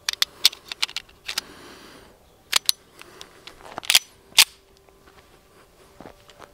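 Metal clicks and clacks of a Springfield 1911 .45 ACP pistol being loaded and readied to fire. A run of light clicks comes in the first second and a half, then sharper clacks, the two loudest about four seconds in.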